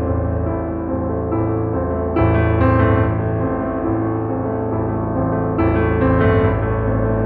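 Background piano music: sustained chords, with new ones struck about two seconds in and again near the end.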